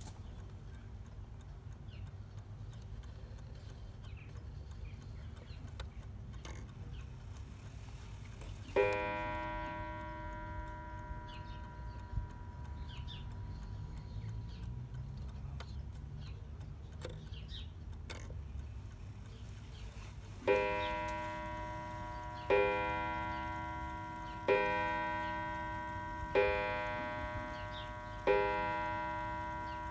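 Smiths Enfield mantel clock ticking, with its hammer striking the coiled wire gong. One strike about nine seconds in, then from about twenty seconds in a run of five strikes about two seconds apart, as when the clock strikes the hour. Each rings on and fades slowly.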